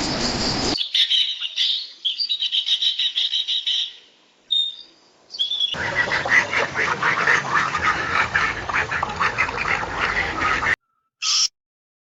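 Bird calls from different recordings cut one after another. A fast run of high chirps is followed by a couple of short calls, then a longer stretch of rapid, harsher calls over background noise. One brief call ends it.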